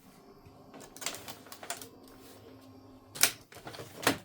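Epson EcoTank ET-3850 inkjet printer's mechanism running: a steady motor hum with a few clicks, then two sharp clacks about three and four seconds in.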